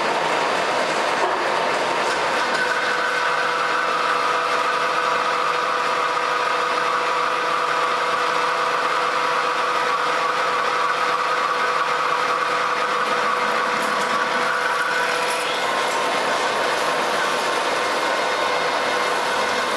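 American Pacemaker engine lathe rough-turning a steel workpiece: steady cutting noise from the tool and chips, over the hum of the running machine. A high ringing tone runs through the cut and changes about fifteen seconds in.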